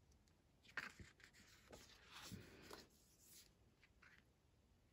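Faint rubbing and rustling of thick photo postcards being slid and turned by hand, with a short, sharper scrape about a second in.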